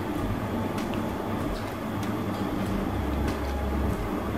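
A steady low rumble, with a few faint light clicks of a metal spoon against a plastic food container.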